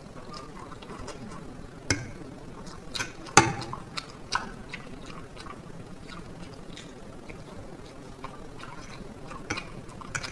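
A person eating black bean noodles and fried egg: chewing and mouth sounds with scattered short clicks and taps, the loudest a sharp click about three and a half seconds in.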